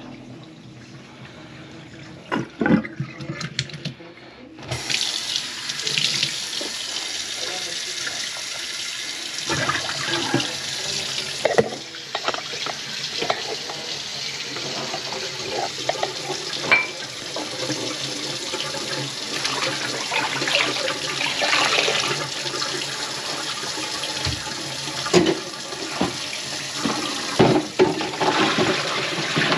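Kitchen tap turned on about four and a half seconds in, water running steadily into the sink, with scattered knocks and clatter over it.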